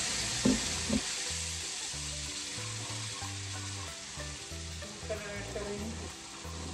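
Semolina halwa sizzling in a small pan after water has been added to the roasted semolina, the hiss slowly dying down as it is stirred with a metal spoon, which clinks against the pan twice about a second in. Background music with low bass notes plays underneath.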